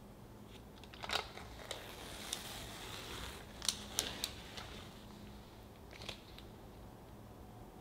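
Parchment paper being peeled off the sides of a baked sponge cake: light crinkling with sharp crackles scattered through the first half and a last few about six seconds in.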